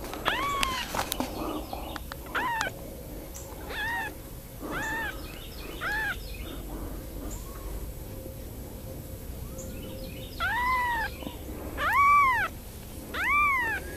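Very young kitten mewing while being handled: about ten short, high-pitched cries, each rising and then falling in pitch, spaced a second or two apart and loudest near the end.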